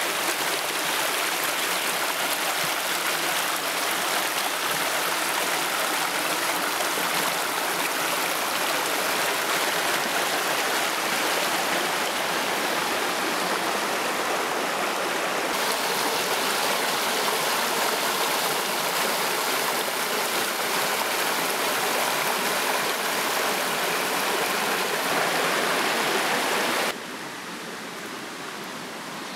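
Shallow Big Sur River rushing and splashing over rocks, a steady continuous flow. It drops noticeably softer near the end.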